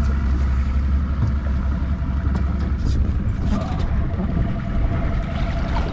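Boat's outboard motor running steadily as the boat trolls: a constant low rumble with a faint steady whine joining about halfway through.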